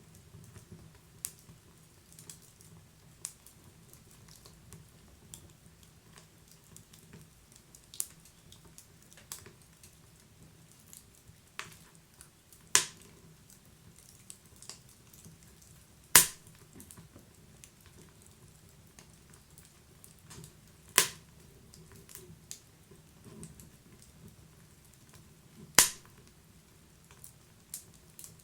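Wood fire crackling: scattered small pops and snaps over a faint low hiss, with a few much louder sharp snaps in the second half, about every four to five seconds.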